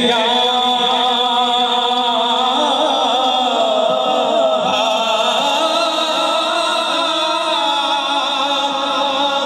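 A man singing a Punjabi naat into a microphone, amplified through a loudspeaker, holding long drawn-out notes that waver in pitch.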